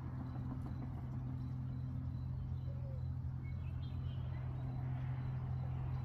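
A steady low engine hum, like a distant motor, with a few faint bird chirps about halfway through.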